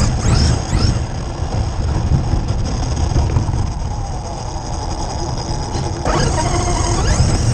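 Losi DBXL-E electric 1/5-scale buggy's brushless motor whining and rising in pitch as it accelerates, briefly near the start and again from about six seconds in, over a steady low rumble.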